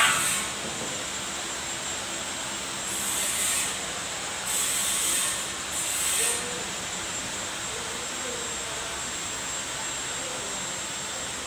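A steady hiss, with three short bursts of louder, higher hissing noise in the first half.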